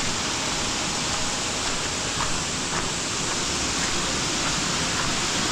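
Steady rush of water from a waterfall and the creek below it.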